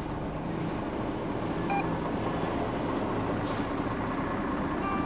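Hino truck's diesel engine running, heard from inside the cab as the truck pulls slowly away, growing slightly louder. A short electronic beep sounds about two seconds in.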